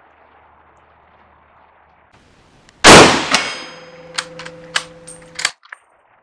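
A single loud shot from a Carcano M91/41 bolt-action rifle (6.5×52mm Carcano) about three seconds in, with a ringing tail. It is followed by a quick series of sharp metallic clicks as the bolt is worked to eject the case and chamber the next round.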